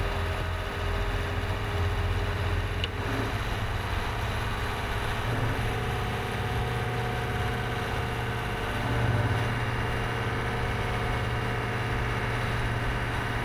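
Boat engine running with a steady low hum; its note shifts slightly about five seconds in.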